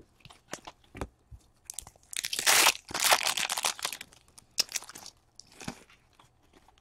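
A trading card pack's wrapper being torn open and crinkled, with two loud crinkly rushes about two and three seconds in, among small clicks and rustles as the cards inside are handled.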